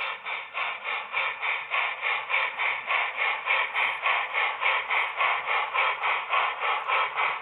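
HO-scale model steam locomotive's sound decoder chuffing steadily through its small speaker, about three to four even chuffs a second.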